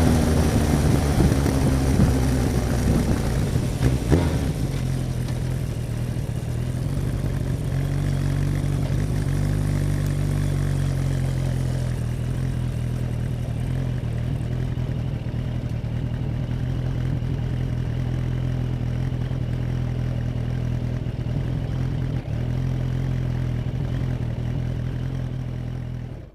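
Suzuki Bandit 1200 S inline-four engine slowing down, its revs falling over the first couple of seconds, then running steadily at low revs. The sound cuts off suddenly near the end.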